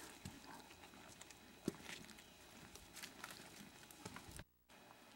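Faint, scattered footsteps and scuffs on rock from people and a dog walking up a rocky slope, with one sharper click about a second and a half in. The sound drops out for a moment near the end.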